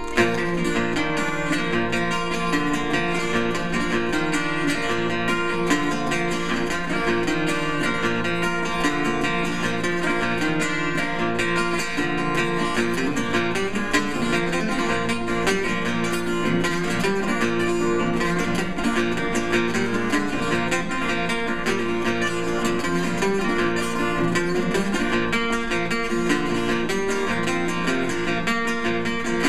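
Solo acoustic guitar playing a steady, fast instrumental passage.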